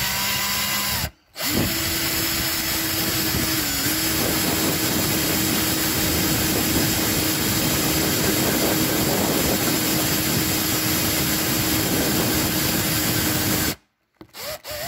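Cordless drill turning a hole saw as it cuts into a painted plastic car bumper. The drill stops briefly about a second in, then spins up again with a rising whine. It runs steadily under light pressure, grinding through the bumper, until it cuts off near the end.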